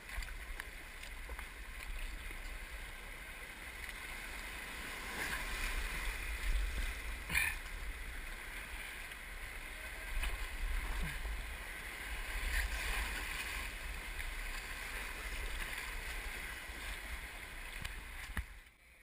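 River water rushing and splashing around a kayak moving through a rapid, with paddle splashes and a low rumble on the microphone. There is a sharp knock about seven seconds in, and the sound cuts off abruptly near the end.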